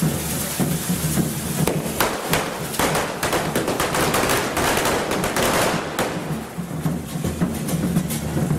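Devils' hand-held fireworks (carretilles) hissing as they spray sparks, with a rapid run of crackling bangs from about two to six seconds in; a low drumbeat sounds under the hiss before and after the bangs.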